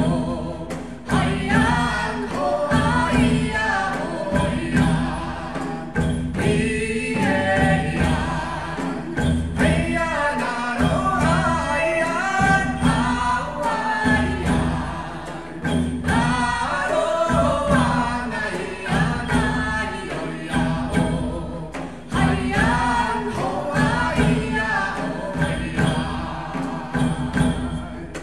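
Music with several voices singing together over a steady low accompaniment.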